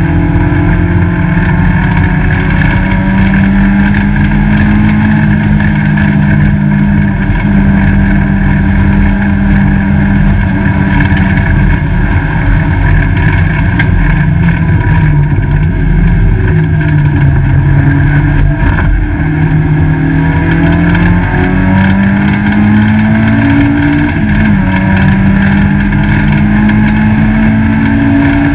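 Peugeot 205 GTi race car's four-cylinder engine under hard racing load, heard from inside its stripped cabin. Its pitch dips about halfway through and climbs again in steps, over steady road noise.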